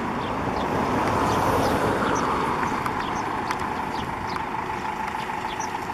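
A vehicle passing on the road: a steady rushing noise that swells about a second in and then eases off a little.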